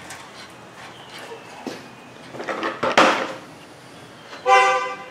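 Gloved hands working a tight electrical connector off a car horn: soft handling rattles and plastic clicks, the sharpest click about three seconds in, and a short pitched sound near the end.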